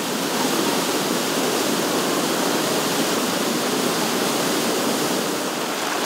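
Rushing water of a shallow rocky stream splashing and tumbling over boulders, a steady noise.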